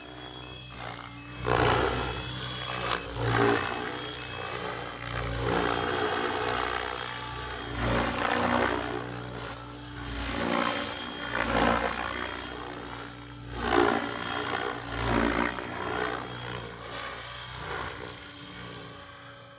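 Electric RC helicopter (Mikado Logo 690) main rotor on VTX 697 blades in flight: blade and motor noise that swells and sweeps in pitch in repeated loud surges every second or two as the helicopter manoeuvres. A regular high beeping runs through the first few seconds.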